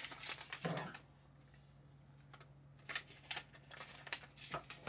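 Faint handling of a small paper salt packet: a few light clicks and rustles, mostly in the second half, over a steady low hum.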